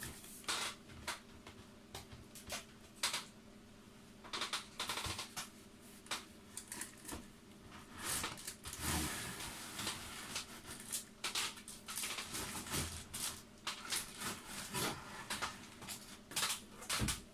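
A cardboard model-kit box being handled and opened: scuffs, taps and sliding of cardboard and paper, with a longer stretch of rustling about halfway through, and plastic-bagged runners crinkling under a hand near the end. A faint steady hum runs underneath.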